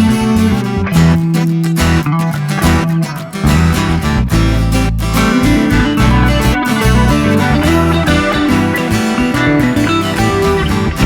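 Background music led by strummed guitar over a bass line.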